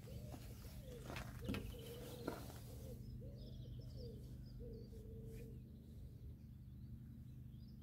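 A pigeon cooing in a run of repeated low notes, with smaller birds chirping higher up from about three and a half seconds in. A few light clicks come in the first couple of seconds.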